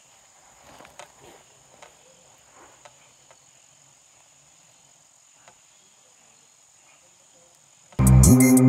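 Faint, steady high-pitched drone of jungle insects, with a few soft rustles and clicks early on; loud background music cuts in near the end.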